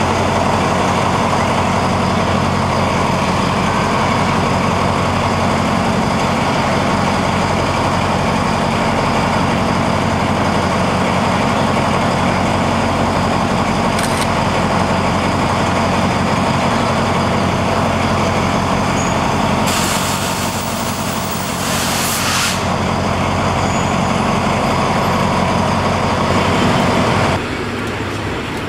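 Diesel locomotive engine running steadily close by, a deep even drone. About twenty seconds in, air hisses out loudly for a couple of seconds, the sound of the air brakes. Near the end the drone drops off abruptly.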